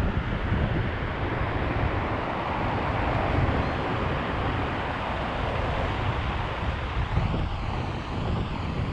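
Heavy ocean surf from typhoon swell breaking on the shore: a continuous roar of waves, fullest in the middle, with wind buffeting the microphone.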